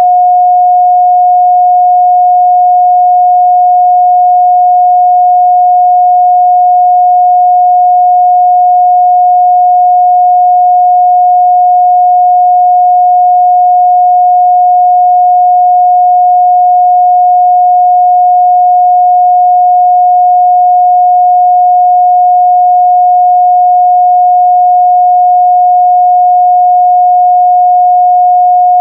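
Steady, unbroken 721 Hz sine-wave test tone, a single pure mid-range pitch held at constant level.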